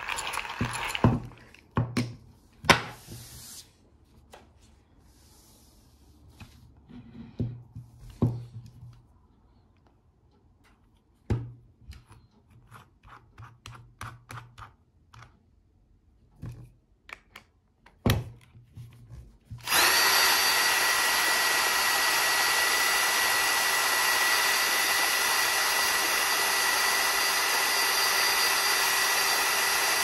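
Scattered clicks and knocks of metal parts being handled. About two-thirds of the way in, a cordless drill starts suddenly and runs at a steady speed with a steady whine, turning the Porlex Mini hand coffee grinder's burr shaft in place of its crank handle.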